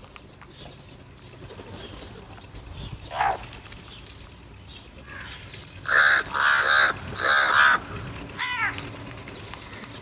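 House crows cawing: one call about three seconds in, then a quick run of loud caws a little past halfway, and a shorter call soon after.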